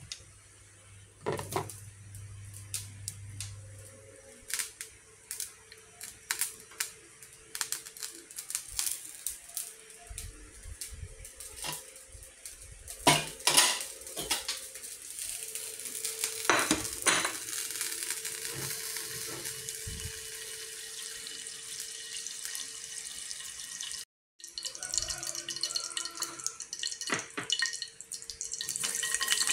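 A plastic rice paddle scrapes and knocks against a rice cooker's inner pot and a ceramic plate as freshly cooked rice is served: scattered clicks and knocks over a faint steady hum. Near the end a hiss builds from oil heating in a frying pan.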